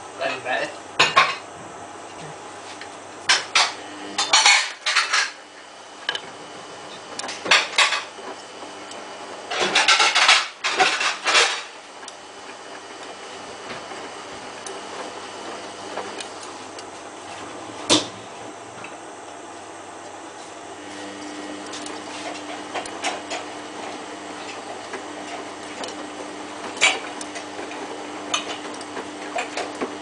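Samsung WF8804RPA front-loading washing machine tumbling its load in the main wash of a synthetics 30 °C cycle. Bursts of clattering and clinking come as the load turns against the drum, thick in the first dozen seconds, then single knocks, over a steady low motor hum.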